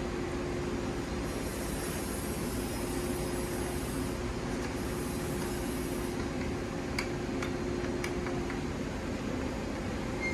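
Steady mechanical hum and rumble with one constant tone, and a few light clicks about two thirds of the way through.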